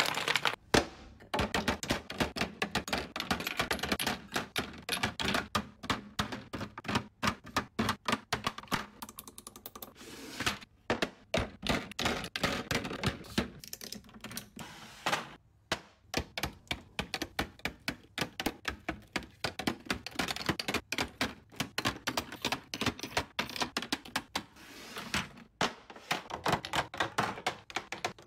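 Glass and plastic foundation bottles clacking and clinking as they are handled, knocked together and set into a clear plastic organizer: a quick, irregular run of small knocks and taps with a few brief breaks.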